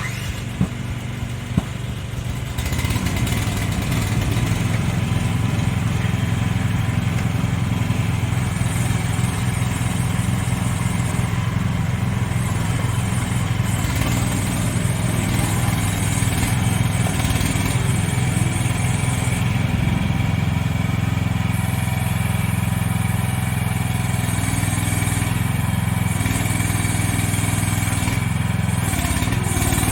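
2025 CFG MX15RX mini excavator's engine running steadily, getting a little louder about two and a half seconds in.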